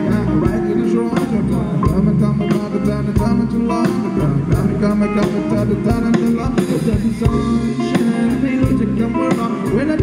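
Live rock band playing through a PA: electric guitars over a drum kit keeping a steady beat.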